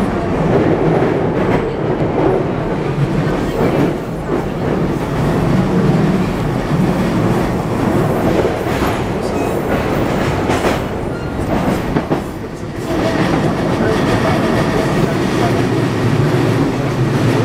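Running sound of an E233-1000 series electric train with Mitsubishi IGBT-VVVF inverter drive, heard inside a passenger car: a steady rumble of wheels on rail with occasional clicks, easing briefly about twelve seconds in.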